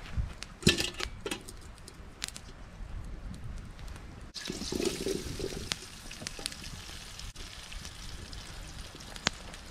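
Wood campfire crackling, with sharp pops over a steady hiss that thickens about four seconds in, as a pot of potatoes starts to heat over the flames. A single knock comes under a second in.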